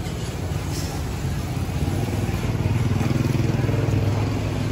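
A motor vehicle engine running close by, a steady low hum that grows louder about two seconds in.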